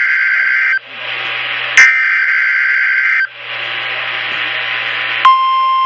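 NOAA Weather Radio Emergency Alert System activation: the screechy two-tone digital SAME header bursts, twice, with radio hiss between them. About five seconds in, the steady, single-pitched 1050 Hz weather-radio alert tone begins.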